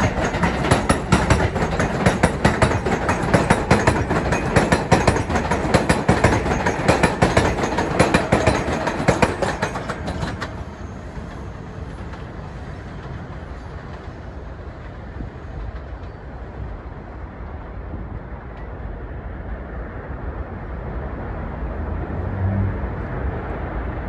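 R188 subway train on the elevated Flushing Line running past, its wheels clattering over rail joints and the steel structure in a rapid rattle. About ten seconds in the clatter drops off sharply, leaving a quieter steady rumble.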